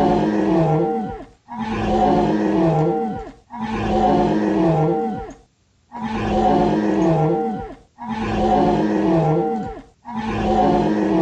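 A loud animal-roar sound effect, the same recording looped over and over. One roar every two seconds or so, with short gaps, each ending in a drop in pitch.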